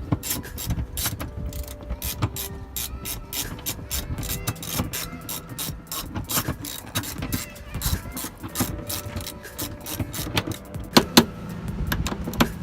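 Ratchet wrench with a 17 mm socket clicking rapidly as the front seat-rail bolts are undone, with two louder metallic knocks about eleven seconds in.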